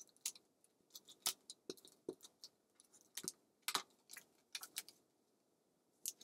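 Scattered clicks and short rasps of a handheld adhesive applicator being run along a piece of cardstock, with paper being handled and pressed onto a card base.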